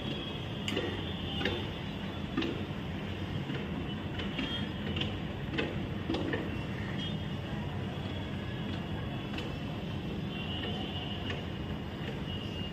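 A steady low background hum, with scattered light clicks and taps as hands spread minced mutton filling on a sheet of rolled dough and fold it.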